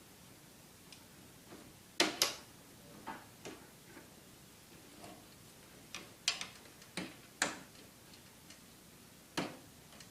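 Securing clips being snapped onto the poles of a MiniPlane paramotor's cage: a string of sharp clicks and knocks, the loudest two about two seconds in, a cluster between six and seven and a half seconds, and one more near the end.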